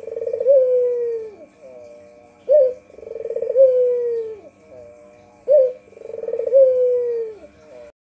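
White puter (Barbary dove) cooing: a short sharp note, then a long rolling coo that sinks in pitch. The call repeats three times, about every three seconds.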